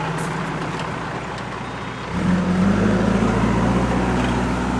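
Diesel engine of a JCB backhoe loader running, its note growing louder and heavier about two seconds in.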